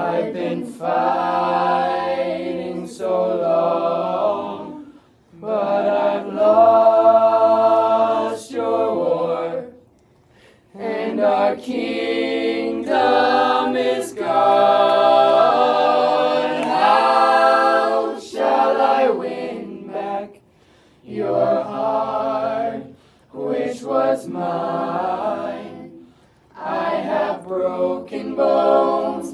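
Mixed a cappella group of young women and men singing in close harmony, with no instruments, in long held phrases and a low bass line under some of them. The phrases are broken by short pauses a few times.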